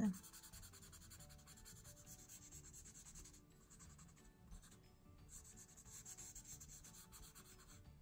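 Faint scratchy rubbing of a paper blending stump over pencil shading on paper, dropping out for a moment about halfway through, under soft, quiet background music.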